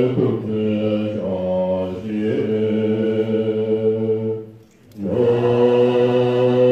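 Assembly of Tibetan Buddhist monastics chanting puja prayers in unison on a low, steady pitch. The chant breaks off briefly a little after four seconds in, then resumes.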